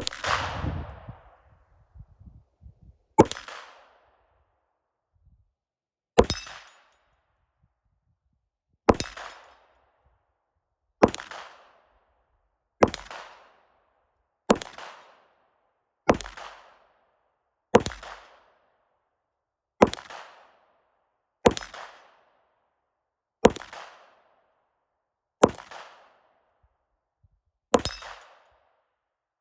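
Glock 45 9mm pistol fired in slow, single shots, about thirteen of them spaced roughly one and a half to three seconds apart, each with a short echo fading after it.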